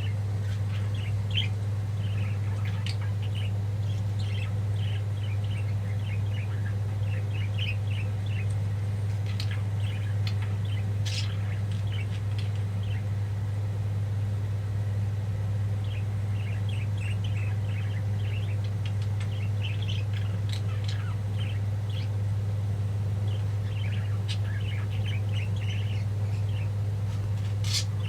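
Pet budgies chirping and chattering in runs of quick, short, high chirps, with a pause of a few seconds about halfway through, over a steady low hum.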